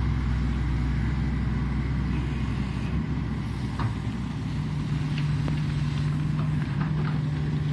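Shantui ME210LC-1 crawler excavator's diesel engine running steadily while digging; its low hum shifts in pitch about three to five seconds in. A few faint clinks are heard over it.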